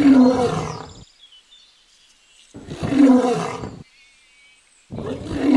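A large animal's roaring call, the same call heard three times, each lasting about a second, with short silences between.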